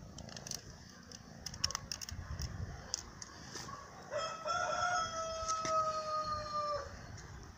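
A rooster crows once, a long, nearly level call lasting almost three seconds, beginning about four seconds in. Faint clicks come before it.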